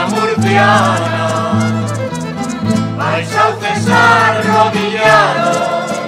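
A rondalla of bandurrias, laúdes, guitars and a violin playing a Spanish folk song, with a mixed choir singing the melody.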